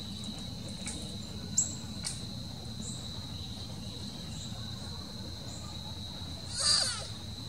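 A steady, high-pitched insect trill, with a faint brief chirp about one and a half seconds in and a louder short call near the end.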